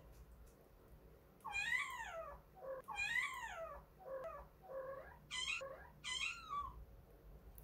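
Kitten meowing about six times: two long, drawn-out meows, then four shorter, higher ones in quick succession. These are a kitten's calls to its mother cat.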